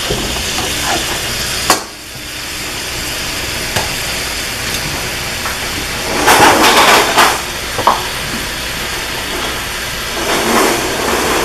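Chopped zucchini and yellow squash and browning ground beef sizzling steadily in pans on the stove. There are a couple of sharp clicks, and the sizzle swells louder about six seconds in.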